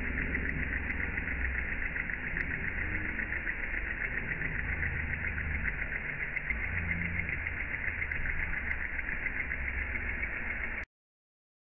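Miniature model engine running at high speed, a fast, even chatter that cuts off suddenly near the end.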